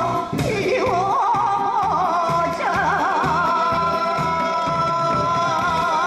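A woman sings a Korean song through a microphone and PA, over amplified backing music and a live drum kit keeping a steady beat. About two and a half seconds in she holds one long note with vibrato.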